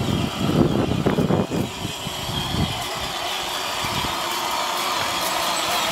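Electric motors and plastic gearboxes of a Power Wheels Barbie Jeep ride-on toy whining steadily as it drives over dry leaves and grass. Uneven rumbling and rustling is louder in the first two and a half seconds.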